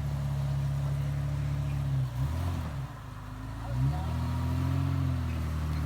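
Off-road 4x4's engine pulling under throttle as it crawls over rocks, easing off a little after two seconds in and revving back up about a second later.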